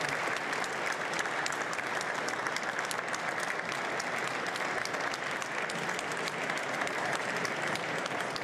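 Large audience applauding, a dense, steady clatter of many hands clapping.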